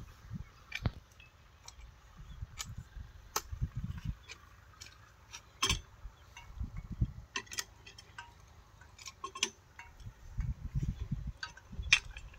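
Scattered metallic clicks and clinks as the hand crank and fittings of a stopped 8 hp diesel pump engine are handled, with a few low rumbles in between. No engine running.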